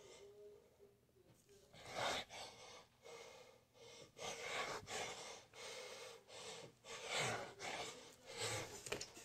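A man breathing hard in quick, noisy gasps, starting about two seconds in and coming once or twice a second: winded from an upper-body burnout workout.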